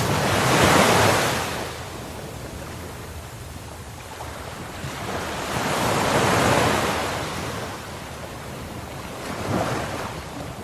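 Ocean waves breaking and washing in, with a steady rush of surf between them. The wash swells three times: most loudly about a second in, again about six seconds in, and more weakly near the end.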